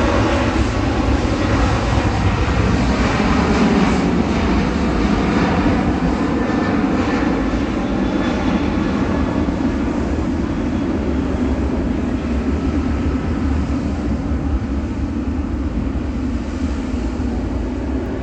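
Boeing 777-300 twin jet engines running at taxi power, a steady rush of engine noise that is loudest in the first few seconds and then slowly fades as the airliner taxis past.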